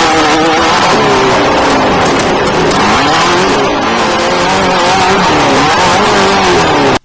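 Off-road desert race vehicle's engine running hard, its pitch rising and falling repeatedly as the throttle is worked, over a steady rush of noise.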